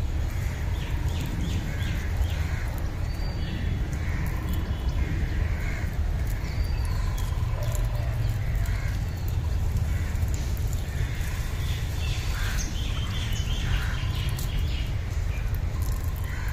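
Scattered short bird calls and chirps, some rising and falling, over a steady low rumble.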